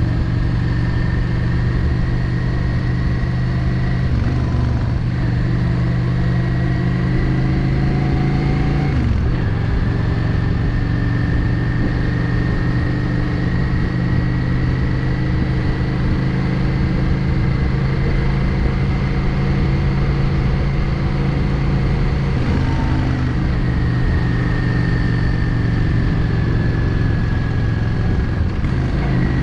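Yamaha XVS 650 Drag Star's air-cooled V-twin engine running steadily while riding. The engine note drops sharply about nine seconds in, then holds steady.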